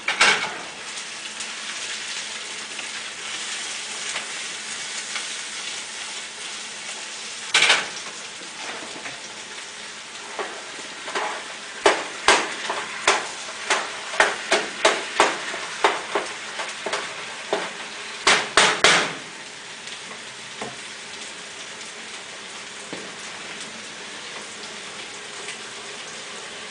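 Food sizzling as it fries on the stove, a steady hiss. A stirring utensil knocks and scrapes against the pot once about seven seconds in, then in a quick run of strokes from about eleven to nineteen seconds in.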